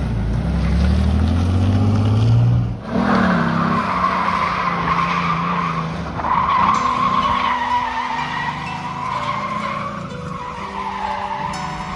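A Ford Sierra's Scorpio Cosworth 2.9-litre 24-valve V6 revs up hard as the car pulls away, then dips sharply about three seconds in. The tyres then squeal on and off as the car drifts, with the engine running on underneath.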